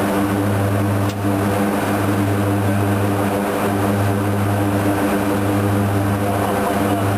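Twin turboprop engines of a CASA C-212-300 heard from inside the cockpit, running steadily with a strong low drone and a stack of even tones above it. A brief click and dip in level comes about a second in.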